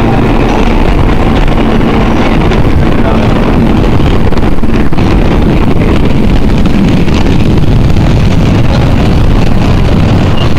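Steady, loud running noise inside a New York subway F train, an R160 car, moving through the tunnel between stations.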